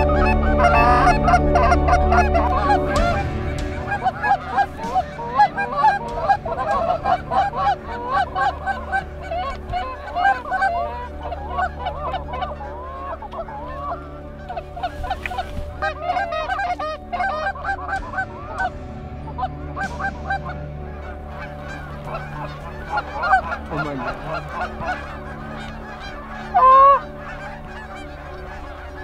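A large flock of Canada geese honking as they circle overhead and set down. The honking is dense and loud at first and thins out after a few seconds, with one sharp, loud honk near the end.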